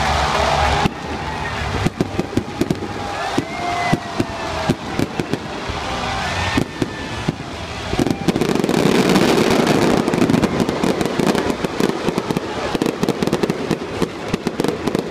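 Fireworks display: rapid bangs and crackling from exploding shells, with a few whistles gliding up and down in pitch during the first half. About eight seconds in, the crackling thickens into a dense, loud barrage for a few seconds.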